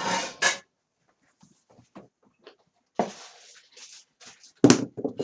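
A pair of casino dice clicked together in the hand, then thrown across a craps table's felt, tumbling for about a second before a sharp knock against the back wall, followed by a few quick clicks as the dice bounce and settle.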